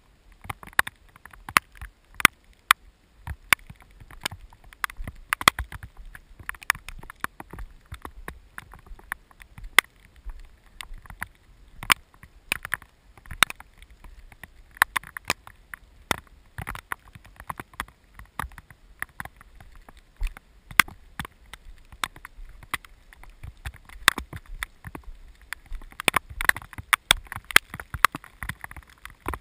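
Raindrops striking the camera housing in a storm: sharp, irregular ticks several times a second, over a faint low rumble.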